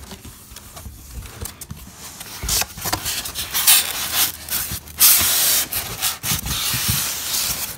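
Clear plastic wrapping crinkling and rustling, and scraping against a cardboard box, as a wrapped toy is pulled out of the box. The rustling gets much louder about a third of the way in and stays loud.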